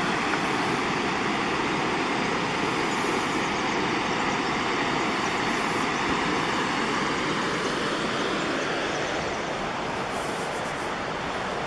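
Steady rushing of a 31-foot waterfall pouring into its plunge pool, a continuous hiss of falling water, growing a little quieter near the end as the listener moves away along the trail.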